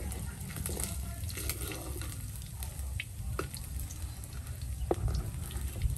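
Beetles frying in hot oil in a wok, sizzling steadily while a metal ladle stirs them, with a few sharp clicks and pops near the middle and later on.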